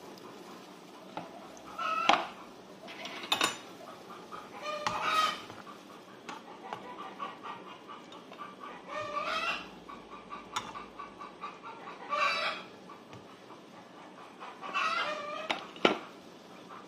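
Domestic chickens clucking and calling in the background, about seven calls spread a few seconds apart, with a few sharp clinks in between.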